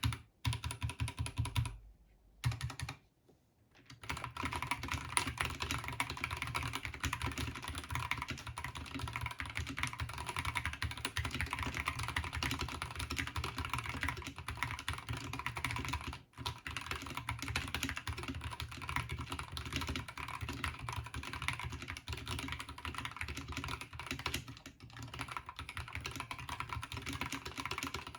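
Stock Glorious GMMK2 Compact mechanical keyboard being typed on in a fast, continuous stream of keystrokes, with a short pause about two seconds in and brief breaks about halfway through and near the end.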